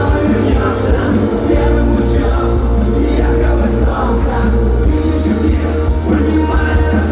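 Live punk-rock band playing at full volume: electric guitars, bass and drums with cymbal hits, and some singing.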